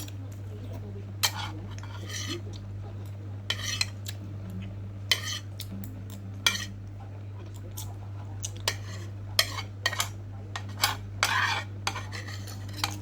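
A spoon clinking and scraping against a bowl in irregular short strokes as the last of a bowl of fried instant noodles with broth is scooped up, over a steady low hum.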